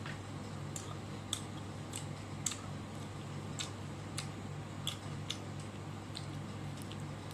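A person eating meat off the bone by hand, close to the microphone: short sharp mouth clicks and smacks of biting and chewing, irregular, about one or two a second. A steady low hum runs underneath.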